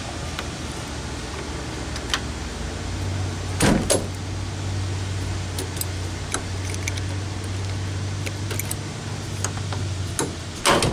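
An RV lockset door latch and deadbolt being worked: sharp metallic clicks and clacks, the loudest a pair of knocks about a third of the way in and another just before the end, over a steady low hum.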